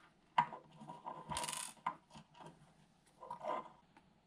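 Small clicks and a short rattling scrape from hands working small hardware, a screw and nut fitted into a plastic 3D-printed motor mount.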